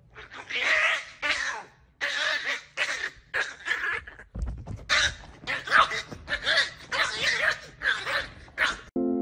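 Small long-haired terrier barking excitedly, a long run of about a dozen sharp, high-pitched barks in quick succession with short gaps between them.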